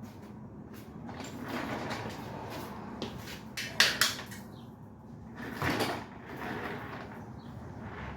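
Handling noise from metal gas-grill parts being worked on by hand during assembly: rubbing and light clatter, with two sharp knocks about four seconds in and a short scrape soon after.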